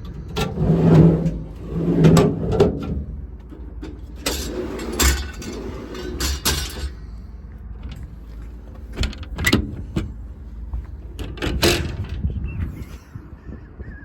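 Metal compartment doors and latches on a truck's service body being worked: a run of knocks, clunks and latch clicks, with rustling handling noise in the first few seconds.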